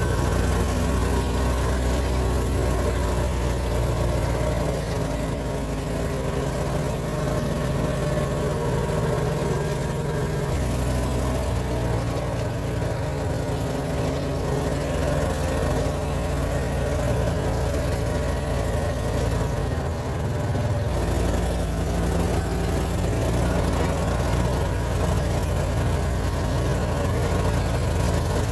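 Vehicle engine running steadily as it drives slowly along a bumpy dirt farm track, heard from inside the cab; the engine note shifts twice, about ten and twenty seconds in.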